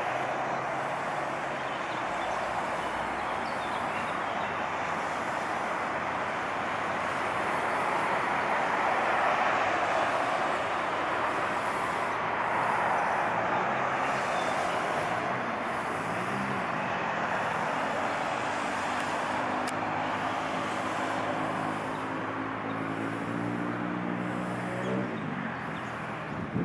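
Steady traffic noise, with an engine hum that builds through the second half and rises in pitch shortly before the end.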